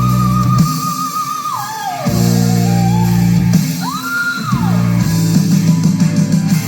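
Rock music recorded off playback with a phone: sustained guitar chords with a high held melody note that wavers, slides down about a second and a half in, then rises and falls again briefly about four seconds in.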